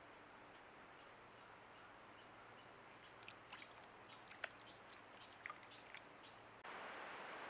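Faint steady high-pitched drone of insects singing over a soft hiss, with a scatter of small clicks and ticks from about three to six seconds in. The hiss turns louder shortly before the end.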